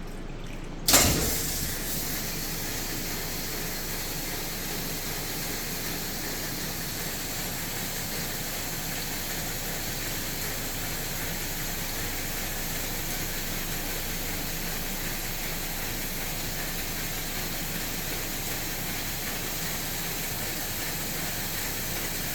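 Hood-type commercial dishwasher starting up: a sudden clunk about a second in, then a steady rushing hiss of water with a low machine hum as it runs.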